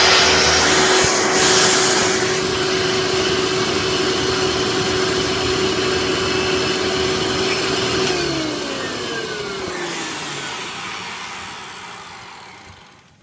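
Hoover Sprint upright vacuum cleaner running with the hose attached, a steady motor tone under the rush of suction. About eight seconds in it is switched off, and the motor's pitch falls as it winds down and coasts to a stop.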